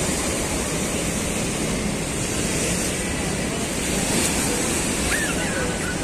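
Rough sea surf: high waves breaking and washing over concrete breakwater blocks, a steady rush of water.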